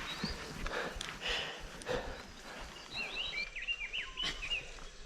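A small bird chirping, a quick run of short rising and falling chirps about three seconds in, over scattered scuffs and clicks.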